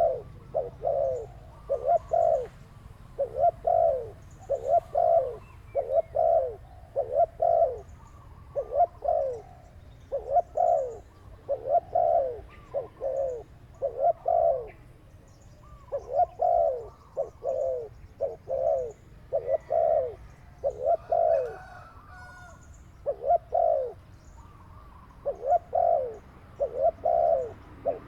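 Doves cooing over and over: short, falling coos repeated about one to two a second, pausing briefly a few times.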